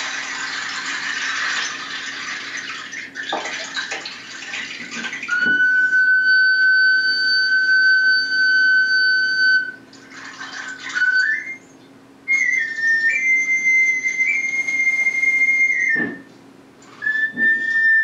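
A rushing, water-like hiss for about five seconds, then a small hand-held whistle blown in long held notes: one steady high tone, then after a short break a few short notes stepping upward into a higher held note, and a final note a little lower near the end.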